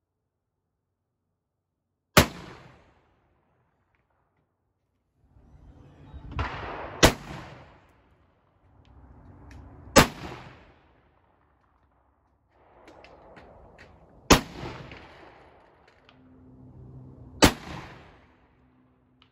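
Five shots from an original Model 1855 rifle-musket, a .58-calibre percussion muzzleloader, each a sharp report with a short trailing echo, three to five seconds apart.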